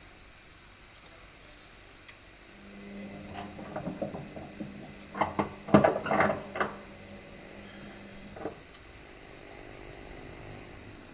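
Hotpoint Aquarius WMF520P washing machine turning its drum briefly at the end of the cycle: a steady motor hum starts about two and a half seconds in and stops near the end, with a run of knocks and clunks in the middle, loudest about six seconds in.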